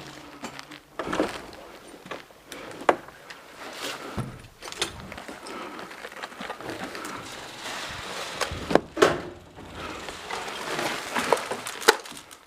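Irregular sharp clicks and knocks with rustling between them, the loudest about three, nine and twelve seconds in.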